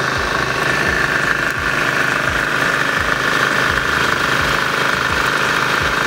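An engine running steadily, with a regular low throb.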